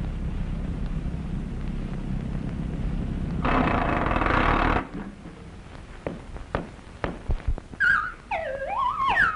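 Cartoon sound effect of an old open car's engine putt-putting in a low, steady rumble as it climbs the road, then a loud hiss for about a second. Scattered sharp knocks follow, and near the end come quick sliding tones that rise and fall.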